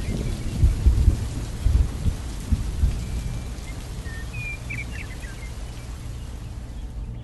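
Steady rain with rumbling thunder. Several heavy thunder claps come in the first three seconds, then the rumble settles under the rain.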